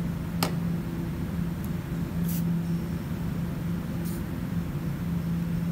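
A WD-40 aerosol can spraying in two short hisses, about two seconds in and again about four seconds in, aimed at the fuel pump's lock ring, over a steady low hum. A sharp click comes just before, about half a second in.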